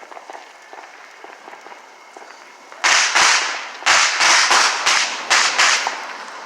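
Fireworks going off: faint scattered crackles, then about three seconds in a rapid string of about nine loud, sharp bangs over some three seconds that die away.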